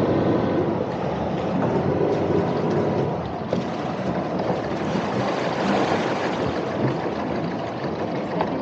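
Steady rushing noise with a low hum underneath, consistent with the sailing yacht's single inboard engine idling while it is held in position for docking.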